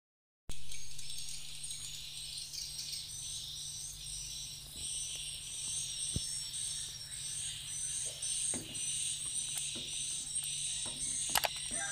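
Insects chirping in a steady, high-pitched chorus, joined by a low steady hum, with a few light knocks near the end.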